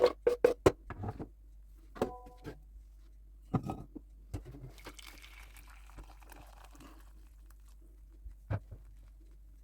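Kitchenware being handled: a quick run of taps and knocks, a ringing clink about two seconds in, a soft hiss in the middle, and a single knock near the end.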